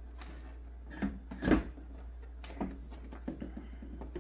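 Hard plastic knocking and clicking as hands shift wire harnesses through the Snoo bassinet's plastic base: a handful of short knocks, the loudest about one and a half seconds in, over a steady low hum.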